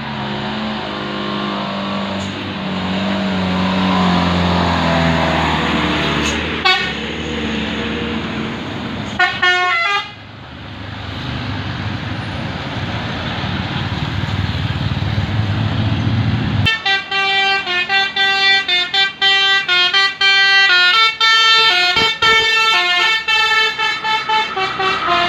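A bus engine pulls hard up a steep climb, its pitch shifting. A short burst of telolet horn notes comes around nine seconds in. From about two-thirds of the way through, a telolet multi-trumpet musical horn plays a fast tune of stepped notes.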